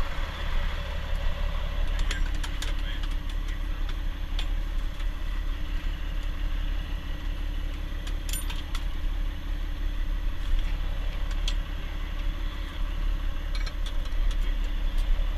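Heavy diesel truck engine idling steadily. Now and then there are a few light clicks and rattles from ratchet strap hardware being handled.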